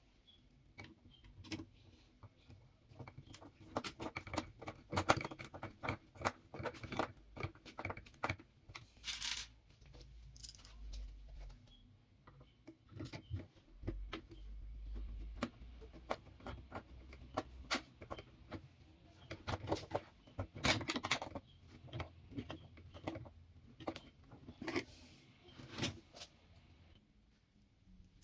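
Irregular clicks, taps and light rattles of small hard parts being handled, with a faint low rumble twice in the middle.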